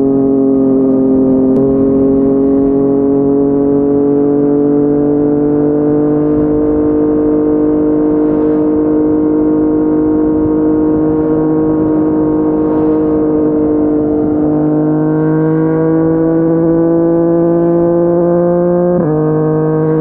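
Yamaha MT-09's inline-three engine through a Yoshimura R55 slip-on exhaust, pulling steadily at cruising speed. Its note climbs slowly, holds, then climbs again from about three-quarters through, with a sudden change in pitch near the end.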